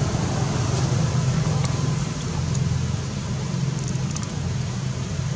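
Steady low rumble of background noise, with a few faint high ticks about four seconds in.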